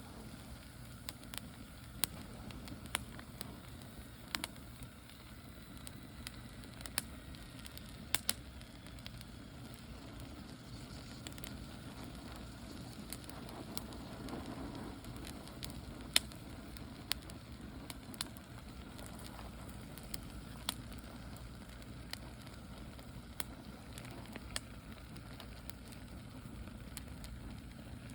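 Wood fire burning, crackling with sharp pops at irregular intervals over a steady low rush of wind.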